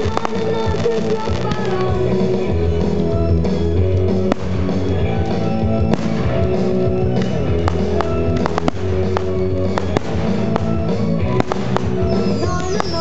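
Music from the display's sound system, with firework shells bursting as sharp bangs over it many times.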